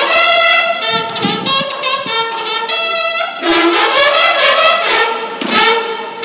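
Banda de guerra bugles playing a fanfare of held notes over rapid snare drum strokes, easing off briefly just before the end and starting again.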